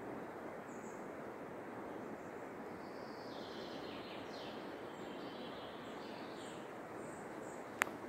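Small songbirds singing and chirping faintly in a beech forest over a steady, even background noise, with warbling phrases clustered a few seconds in. A single sharp click comes near the end.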